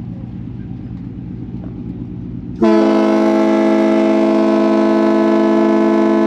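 The Desert Princess cruise boat's whistle sounds one long, loud, steady blast, starting about two and a half seconds in, as a departure signal. Before it there is a low steady rumble.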